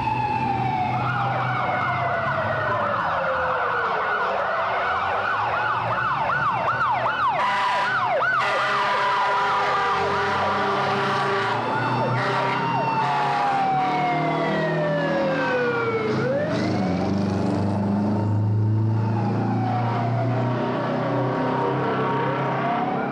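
Several emergency sirens sounding at once: slow wails that fall and rise over a few seconds each, with a fast yelping siren over roughly the first third.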